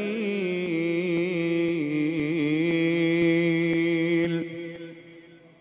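A male Quran reciter (qari) in tilawah style, holding the last word of the verse as one long sung note with wavering ornaments. The note fades out about four and a half seconds in.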